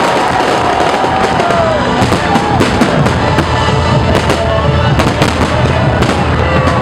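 Fireworks bursting overhead in a rapid run of sharp bangs and crackles that begins about two seconds in, over a crowd shouting and cheering.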